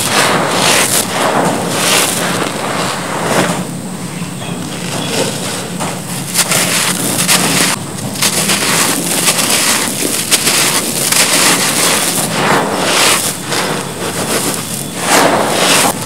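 Hands digging into and scooping loose, gritty cement powder and gravel: a continuous grainy crunching and rustling, broken by frequent short crackles as the grit shifts and pours.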